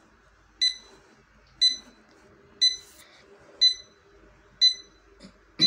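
LCD digital alarm clock's alarm going off: short, high-pitched single beeps, evenly spaced about once a second.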